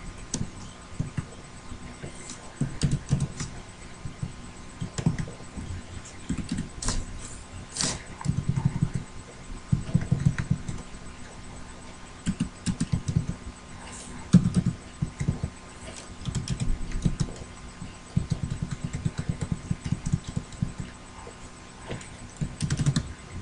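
Typing on a computer keyboard in short, irregular bursts of key clicks, with brief pauses between them.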